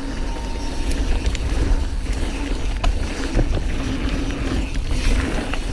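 Mountain bike riding down a dirt trail: a steady low rumble of wind on the action-camera microphone and tyres on the ground, with scattered clicks and rattles from the bike.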